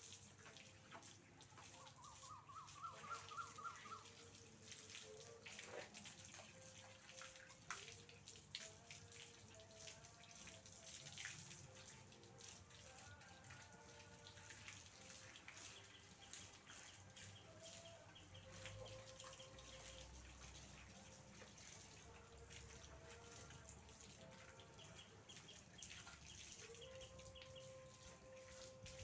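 Faint trickle and drip of water from a garden hose while a dog is washed. Birds call in the background, with a short rising run of chirps a couple of seconds in.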